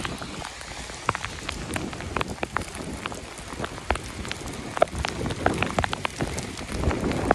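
Rain falling: a steady hiss with many sharp, separate ticks of drops striking the phone and its microphone close up, the ticks coming thicker near the end.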